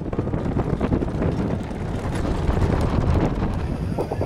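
Wind buffeting the microphone: a dense low rumble with irregular crackles.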